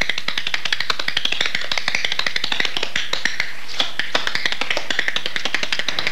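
Tap shoes striking a hard studio floor in a quick, unbroken run of sharp clicks.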